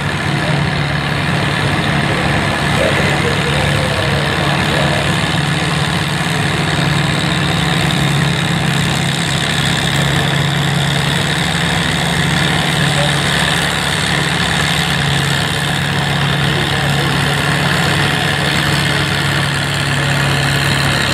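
Farm stock tractor's diesel engine running steadily at one constant pitch, with no revving up or down.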